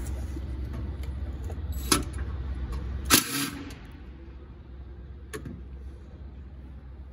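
Cordless drill driving a 12 mm socket on an extension to take off the nuts of a secondary air pump's mounting frame: a steady low running sound for about three seconds, with a click near two seconds, then a sharp metallic clack, after which it is quieter.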